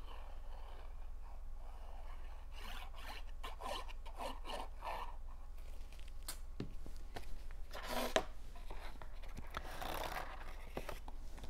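Cardstock pieces of a box card being handled, glued and pressed by hand. There are short scraping and rubbing strokes with a few light taps, and longer paper rustles about eight and ten seconds in.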